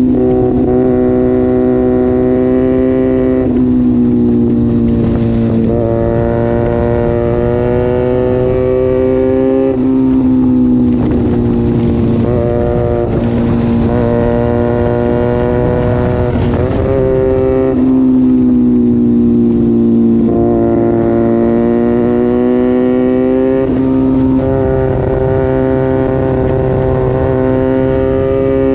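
Small sport motorcycle's engine running hard through an aftermarket exhaust while being ridden: a sustained high note that rises and falls with the throttle and dips sharply a few times, as at gear changes.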